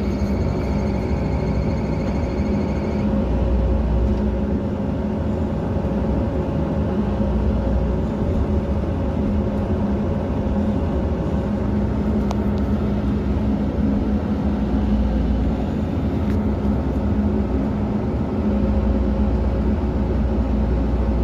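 Excavator diesel engine running steadily, its low note swelling and easing every few seconds as the machine works. A high steady whine stops about three seconds in.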